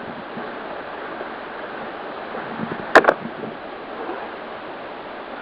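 Steady rush of wind-driven waves on the water around a kayak, with one sharp click about three seconds in.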